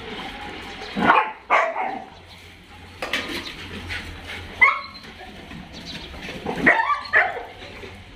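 Dogs barking and yipping in play while they wrestle: a few short barks come about a second in, another a little past the middle, and a quick pair near the end.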